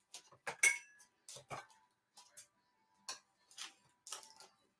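A wide roll of heat-resistant tape being handled: scattered light clicks and rustles at irregular intervals.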